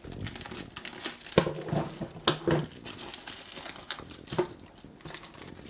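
A toy blind bag being torn open and its plastic wrapper crinkled and rustled, in a run of irregular crackles.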